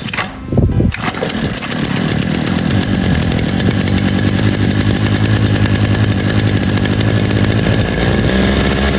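Small two-stroke hedge trimmer engine catching about half a second in and running steadily, with a change in pitch near the end. It is the first test run of a long-stored machine whose trouble the mechanic puts down to the fuel lines.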